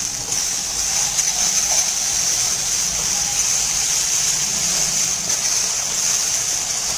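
Onion-tomato masala sizzling in hot oil in a kadai while it is stirred with a metal spatula: a steady hiss, the masala cooked to the point where the oil separates.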